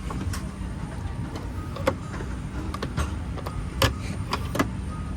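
Steady low rumble and hum inside a Boeing 737-800's cabin, with four sharp clicks or knocks in the middle.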